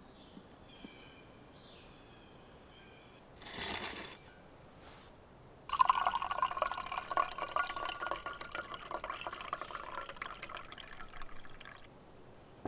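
Brewed coffee poured from a glass French press into an enamel camping mug, a steady splashing pour of about six seconds starting a little before halfway. A brief swish comes a few seconds before the pour, and a click near the end as the press is set down.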